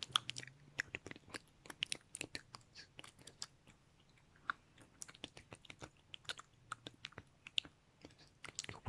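Close-miked ASMR mouth sounds: irregular wet clicks and smacks of lips and tongue, some in quick clusters, with a sparser stretch near the middle.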